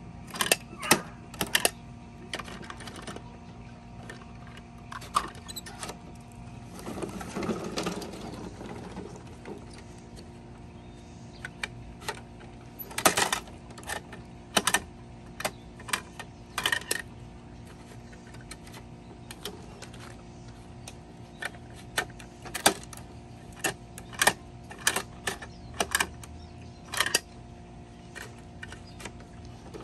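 Plastic toy garbage truck mechanisms clicking and clacking as they are worked by hand to lift and dump toy trash bins: irregular sharp clicks and knocks, with a brief rattle of tipping contents about a third of the way in, over a steady faint hum.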